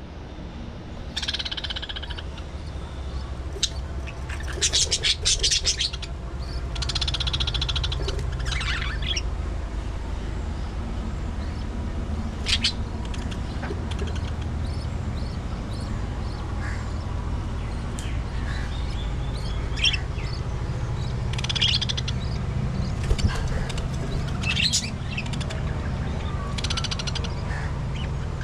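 A colony of budgerigars chirping and chattering in short, high calls scattered throughout, over a steady low hum.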